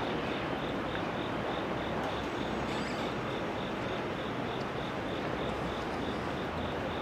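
Steady rumble of station and rail surroundings with a faint, high pulsing chirp repeating about four times a second.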